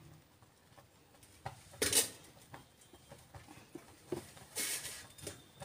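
A silicone brush greasing a steel plate with oil: a few light knocks and short brushing scrapes on the metal, the sharpest clack about two seconds in.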